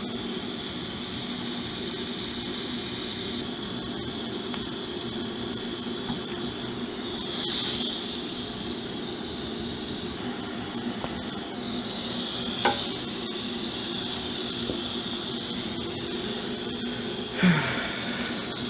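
TIG welding arc running on a motorcycle frame: a steady hiss and buzz with a little waver in tone. There is a short sharp snap about two-thirds of the way through and another near the end.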